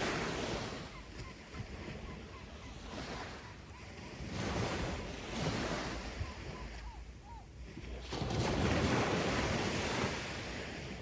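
Sea waves washing onto the shore, a steady rushing that swells and ebbs about three times.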